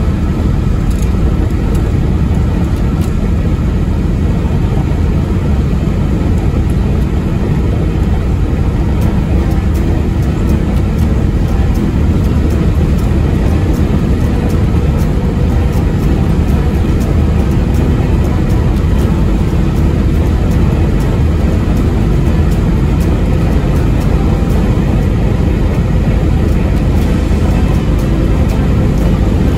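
Steady road and wind noise of a car driving at highway speed, a continuous low rumble that holds at one level.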